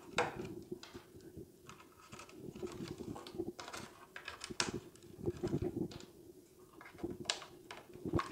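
Small plywood stake holders clicking and tapping as they are pulled out of and pressed into the slots of a round plywood basket-weaving jig: irregular light clicks, a few at a time.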